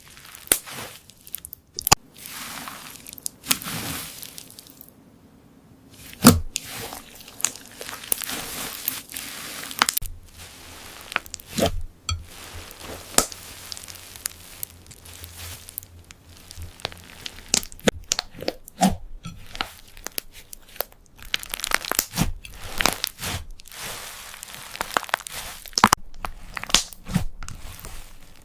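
Slime being pressed, squeezed and pulled by hand, giving off an irregular run of sharp clicks and crackles, with a few louder snaps.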